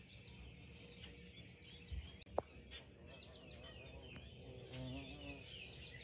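Faint songbirds chirping and singing, many short quick notes overlapping from several birds. A single sharp click a little over two seconds in.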